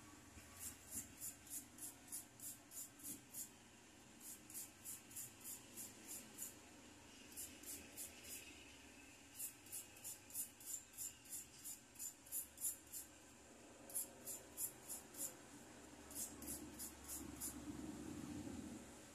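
Thin metal bangle being rubbed against a hand-held wooden stick: light, hissy scraping strokes, about three a second, in runs of a few seconds with short pauses between them.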